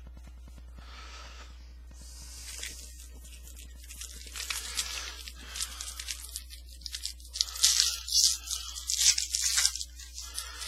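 A foil trading-card pack being torn open and its wrapper crinkled. The tearing and crackling start after a few quiet seconds and are loudest near the end.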